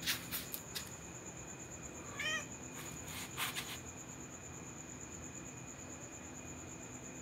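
A cat gives one short meow about two seconds in, over the steady high chirring of crickets. A few sharp clicks come near the start and again around three and a half seconds.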